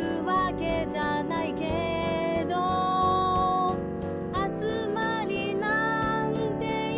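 A pop song playing: a sung melody with vibrato over sustained backing chords and a steady hi-hat beat.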